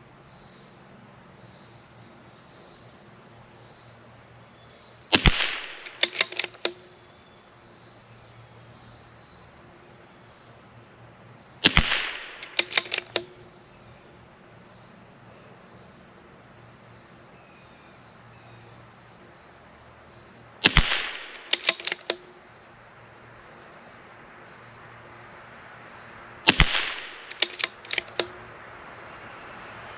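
Four shots from a CZ 457 MTR bolt-action .22LR rifle firing subsonic SK Rifle Match ammunition, spaced several seconds apart. Each shot is followed within about a second by a few light clicks of the bolt being cycled. A steady high insect trill runs underneath.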